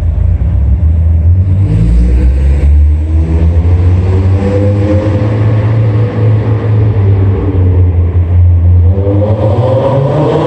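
Mazda Miata four-cylinder engine running through a Hooked Aerochamber muffler as the car drives through a concrete parking garage. There is a deep, steady exhaust note, and the revs rise a few seconds in and again near the end.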